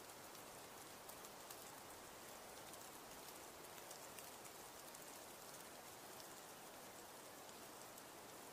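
Near silence: the faint, steady hiss of falling wet snow, with scattered light ticks of flakes striking.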